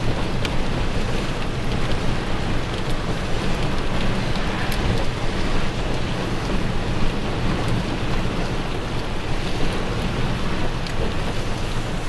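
Gale-force wind buffeting the microphone in a loud, rumbling, gusting rush, over the noise of rough lake surf, with a few small ticks.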